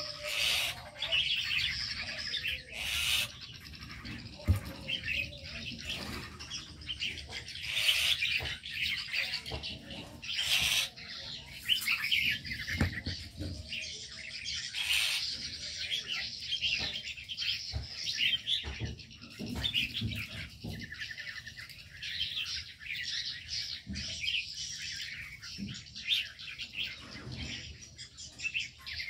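Many small aviary birds chirping and twittering at once, a dense overlapping chatter, with a few short sharp clicks mixed in.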